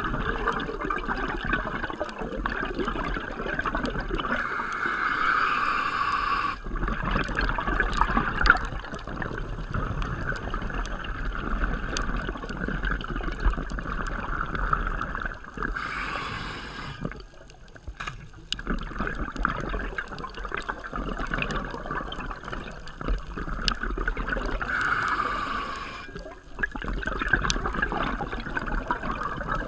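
Scuba diver's breathing heard underwater through a camera housing: bubbles from the regulator on each exhale, in three louder bursts about ten seconds apart, over a steady water noise.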